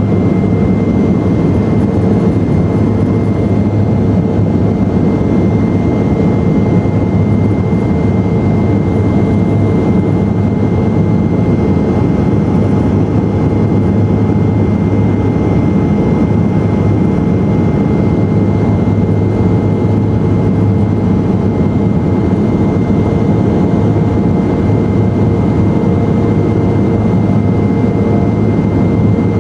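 Cabin noise of a BAe Jetstream twin turboprop in flight: the steady drone of its Garrett TPE331 engines and propellers, with a constant thin high whine over it.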